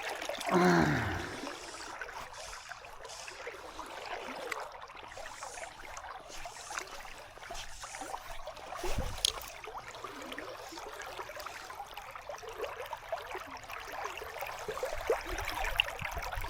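River water flowing steadily over the riverbed. A man's brief falling groan comes just after the start, and a single knock about nine seconds in.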